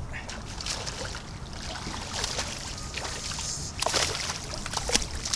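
Water splashing and trickling, with several sharp clicks and knocks over a steady low rumble, most of it around four to five seconds in; this is typical of a freshly caught trout being lifted from the water and handled on a boat.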